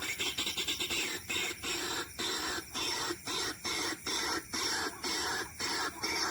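White-breasted waterhen (ruak-ruak) calling: harsh, scratchy call notes repeated in an even rhythm of about two a second.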